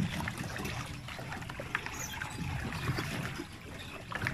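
Water churning and trickling as a pedal-driven water bike is pedalled across a lake, with a low rumble and small knocks.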